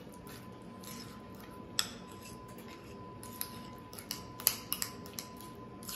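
A utensil mashing and stirring softened butter and blue cheese in a small ceramic bowl, with soft scraping and a few light clicks against the bowl, the sharpest about two seconds in and between four and five seconds in.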